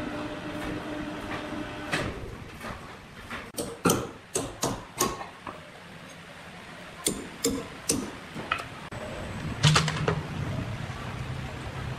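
A steady machine hum that stops about two seconds in, then a series of sharp metallic knocks and clanks as iron dogs are set to clamp a timber beam on a band sawmill carriage. Near the end a heavy clunk, and a low steady hum starts up.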